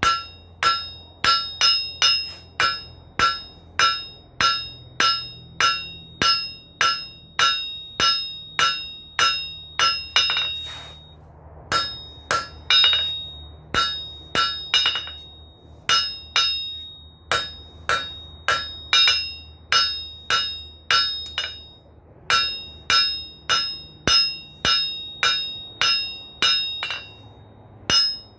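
Hand hammer striking hot 3/8-inch rebar on a steel anvil, about two blows a second, each blow ringing out from the anvil, with a couple of short pauses. The end of the rebar is being flattened for a spoon handle.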